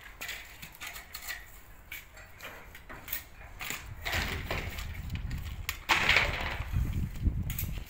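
Irregular scraping, crunching and clicks of a plasterer's hand tool working a gypsum plaster ceiling panel, growing louder and rougher in the second half.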